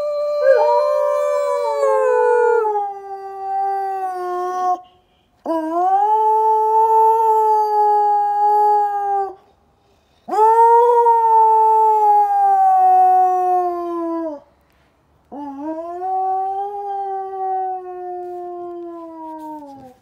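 A dog howling: four long howls in a row, each swooping up at the start and then sliding slowly down in pitch, with short pauses for breath between them.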